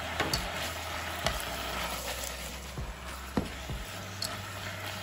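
Fishcake pieces sizzling in a sticky sweet-and-sour caramel sauce in a small saucepan, with a steady hiss and a few sharp clicks of chopsticks against the pan as they are stirred.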